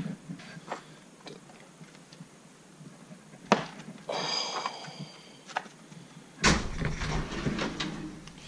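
Metal tool chest drawers being handled and tools clinking while rummaging, with a short metallic ring about four seconds in; a drawer slides open with a rumble about six and a half seconds in.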